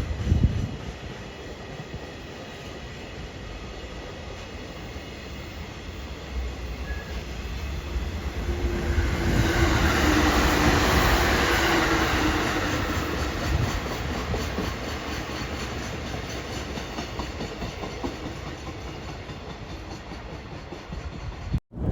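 A train passing on the rails, growing louder to its peak about ten seconds in and then fading away, with the clack of wheels over the rail joints.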